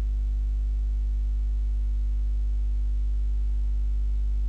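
Steady low electrical mains hum with a few faint higher overtones, unchanging throughout.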